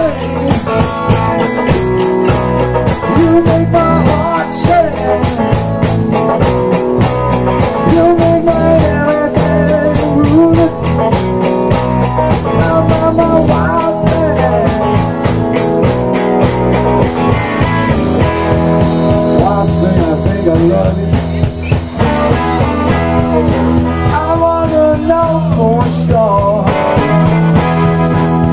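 Live blues-rock band playing: two electric guitars, an electric bass and a drum kit, with a lead line of bending notes over a steady beat. The rapid cymbal ticking drops out about two thirds of the way through.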